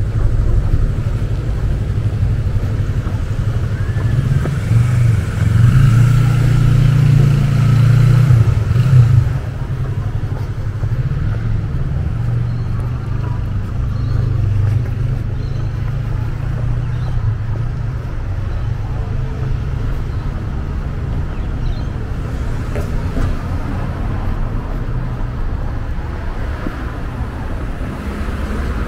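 Road traffic running past on a street, a low rumble that is loudest in the first nine seconds, then drops suddenly to a steadier, quieter level.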